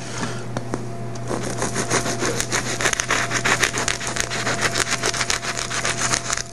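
Serrated bread knife sawing lengthwise through a crusty loaf of French bread, a rapid run of even, crunching strokes that stops near the end.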